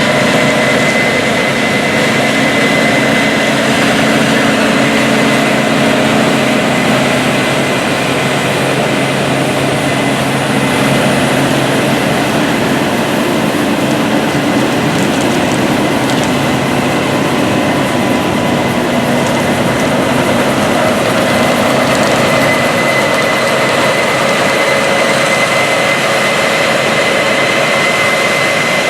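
Large diesel harvest machinery running steadily: a heavy engine drone with a steady high whine over it.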